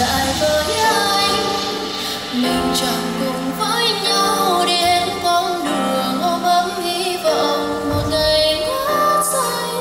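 Vietnamese pop song with a woman singing over an instrumental backing track.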